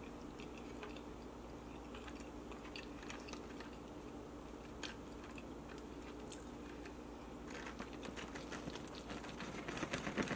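Close-miked chewing of a mouthful of chicken wet burrito, soft and sparse. About seven seconds in, a denser run of clicking and scraping starts as a metal fork and knife cut the wet burrito in its plastic takeout tray, growing louder toward the end.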